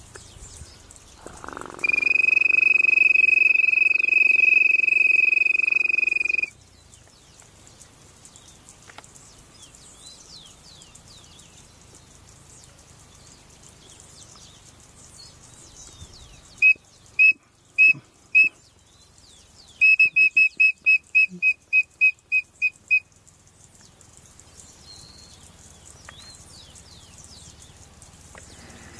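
Whistled codorna piriri (small quail) calls. First comes one long steady whistle lasting about five seconds. After a pause there are four short notes, then a quick run of about a dozen notes at the same pitch. Faint bird calls are heard in between.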